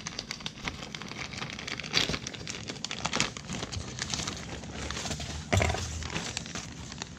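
Thin black plastic shipping bag crinkling and rustling as it is pulled open by hand and a cardboard box is drawn out, with a few louder crackles around two seconds in and past the five-second mark.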